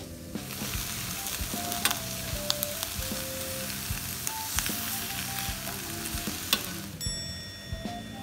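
Lamb and vegetables sizzling on a domed cast-iron jingisukan grill, with a few sharp clicks of metal tongs against the pan. The sizzling cuts off suddenly about seven seconds in, leaving light banjo music.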